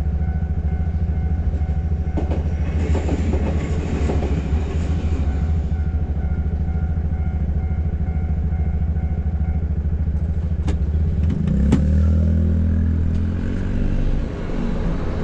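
A train passing over a level crossing, its wheels clattering, over the steady idle of a Hino truck's diesel engine. About eleven seconds in, the crossing clears and the truck's engine revs up as it pulls away.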